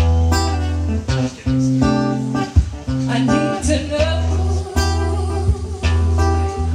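Acoustic guitar strummed live, a new chord struck about every second with low bass notes under it.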